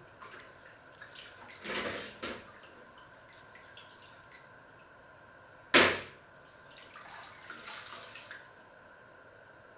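Off-screen kitchen handling sounds: a short rush of noise, then a single sharp knock, the loudest moment, a little past halfway, then another short rush of noise, over a steady low hiss.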